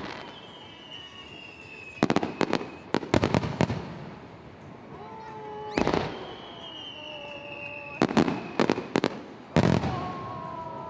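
Aerial fireworks shells bursting: single sharp bangs and quick clusters of bangs every second or two. Between the bursts, long high whistles slide slowly downward, and fainter lower whistling tones glide near the end.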